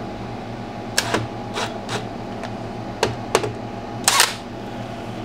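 A handful of short, sharp clicks and knocks, irregularly spaced, as a cordless drill's long bit is set into a bolt hole in a cast aluminum mailbox base and lined up. A steady low hum runs underneath, and the drill motor is not running.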